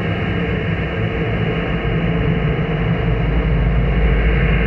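Dark horror ambience: a dense, steady drone, heavy in the bass, that swells slightly louder near the end.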